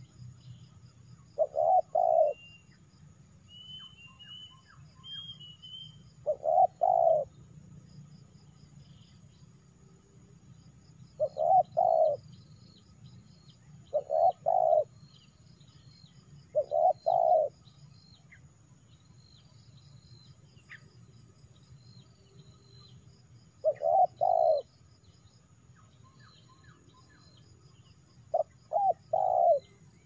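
Spotted dove cooing: about eight short phrases of two or three low notes, repeated every few seconds.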